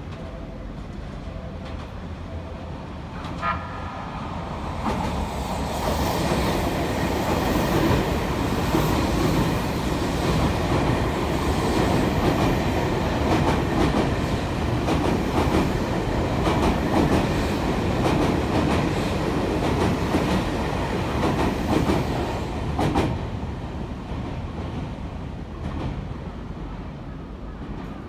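Tokyu 5050-series electric train passing through a station at speed without stopping, its wheels clattering over the rail joints. A brief high tone sounds about three and a half seconds in. The train grows loud from about five seconds in and fades after about twenty-three seconds as the last cars go by.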